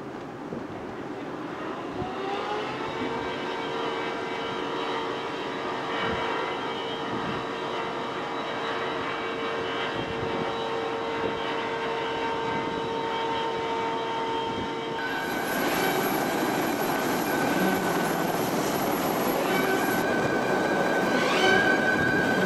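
CH-46 Sea Knight tandem-rotor helicopter running close by: a turbine whine rises in pitch about two seconds in and then holds steady over a broad rush of rotor noise. About fifteen seconds in it changes to a higher whine.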